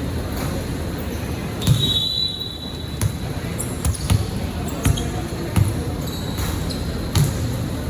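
Basketball bouncing on a hard court, a handful of dribbles spaced unevenly, with a brief high steady tone about two seconds in.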